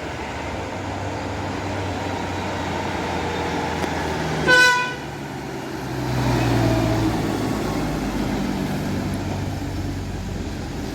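Road traffic with a deep engine rumble throughout. A vehicle horn gives one short toot about four and a half seconds in, then the rumble swells as a heavy vehicle passes.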